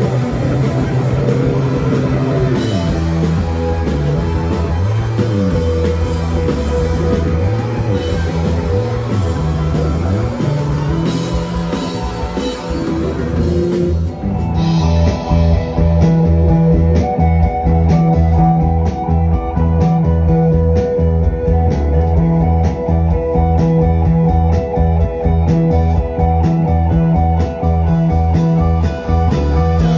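Live psychedelic rock band playing loud: electric guitars, bass and drum kit, with gliding guitar lines in the first half. About halfway through it cuts abruptly to another recording, duller in tone, with a steady driving beat.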